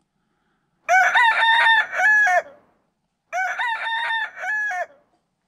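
A rooster crowing twice, each a full cock-a-doodle-doo of about a second and a half; the two crows are nearly identical.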